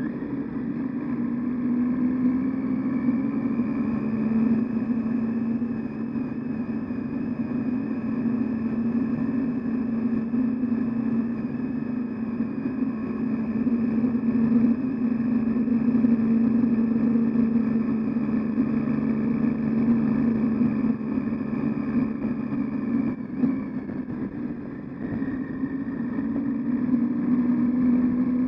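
Triumph Tiger 800XC's three-cylinder engine running steadily as the motorcycle is ridden along a dirt byway. The engine note dips briefly about two-thirds of the way through, then picks up again.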